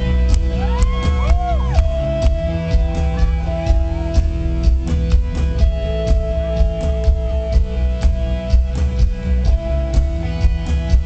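Rock band playing live: electric guitars holding chords over a steady drum beat, with a lead line bending up and down in pitch about a second in.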